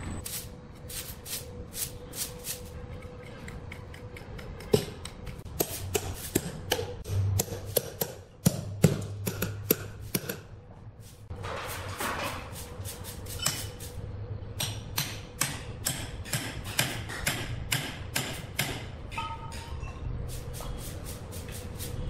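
Irregular knocks and taps, wood and metal, as a large log is wedged and blocked in place on a sawmill track, over a steady machine hum with a constant tone.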